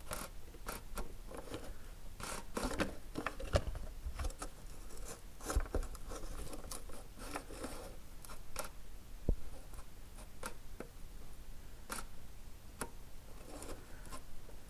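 Hand tools and plastic parts being handled under a car: scattered light clicks, taps and short scrapes at an uneven pace, with no steady motor or rhythm.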